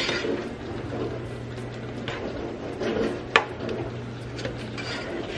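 Spinach cooking in a metal saucepan, stirred with a utensil: soft scraping and light clicks against the pot, with one sharper clink about three and a half seconds in, over a steady low hum.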